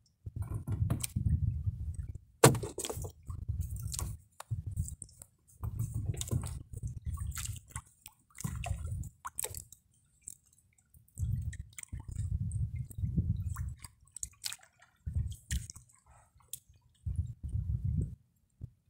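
Wet fishing net being hauled in by hand over a wooden boat's gunwale and a fish worked free of the mesh: wet rustling, dripping, small scrapes and clicks, in repeated low rumbling spells of a second or two. One sharp knock against the hull comes about two and a half seconds in.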